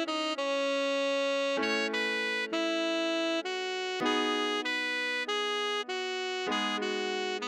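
Tenor saxophone playing the melody at half speed, one held note after another, over piano chords that change about every two and a half seconds.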